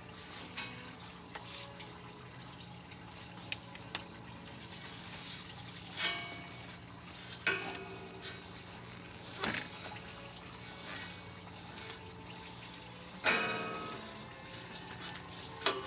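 Hand work on metal parts in a car's engine bay: a few sharp clicks and clanks, some ringing briefly, the loudest about 13 seconds in, over a steady low hum.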